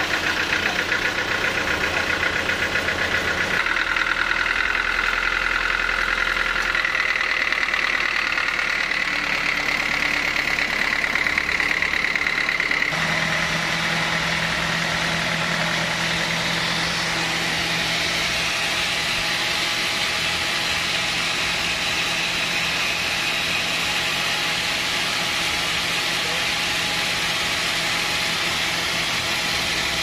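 Band sawmill's drive engine running steadily, turning the multi-V-belt drive to the saw. The tone shifts abruptly a few times.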